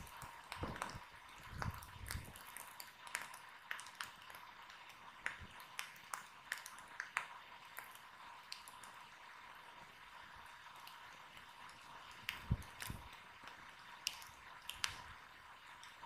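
Wood fire crackling faintly, with irregular sharp snaps and pops over a steady hiss and a few low dull thuds, about a second in and again about twelve and a half seconds in.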